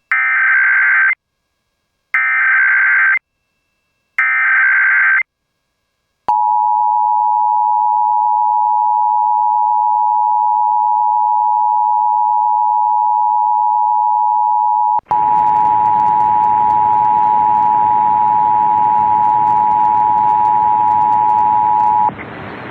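Emergency Alert System header and attention signal: three one-second bursts of SAME digital header data about a second apart, then the EAS two-tone attention signal, a steady dual tone held for about sixteen seconds. After a brief dropout partway through the tone, a hiss of noise comes in beneath it.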